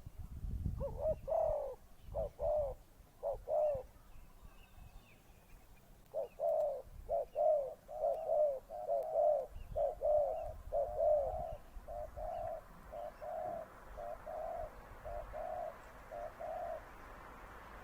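Male dove cooing in a rapid, repeated calling song: a short phrase of about four coos, then after a pause a long run of about fifteen quick coos that grow shorter and softer toward the end.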